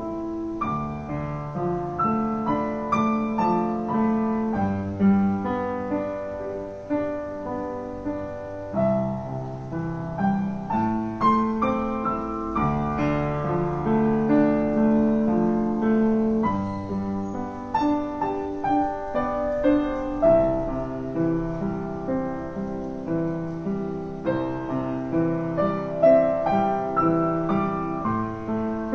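Background piano music: notes struck in a steady flow over held lower notes, each dying away after it is played.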